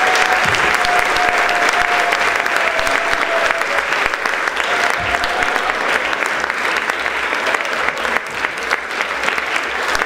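Audience applauding, a dense, steady clapping. A long held tone sounds faintly under it for the first few seconds.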